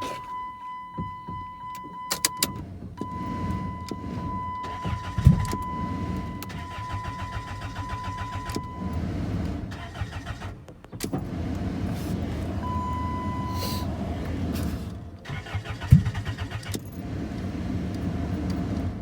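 Car starter cranking the engine in two long attempts without it catching, because the fuel pump is not running (its relay has been pulled). A sharp knock sounds during each attempt, and a steady electronic warning chime runs through the first half.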